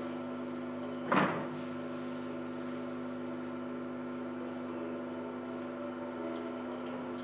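A steady hum of several held tones, with one short knock about a second in.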